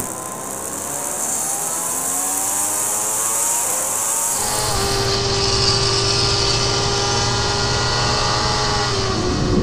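Onboard sound of racing superbikes at full throttle, with their inline-four engines and wind rushing past the camera. For about four seconds the engine note climbs steadily as the bike accelerates. It then cuts to a second bike running at high revs with a steadier note and louder wind hiss.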